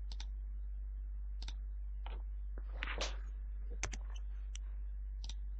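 Computer mouse clicking, a handful of short, irregular clicks as edges are selected, over a steady low electrical hum.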